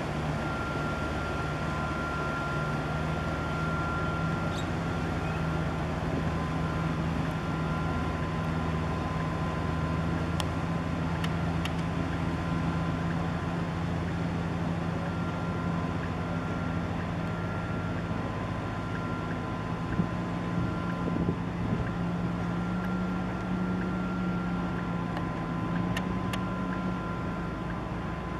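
Steady low drone of a large ship's engine passing close by, with a steady higher hum over it and a few brief clicks.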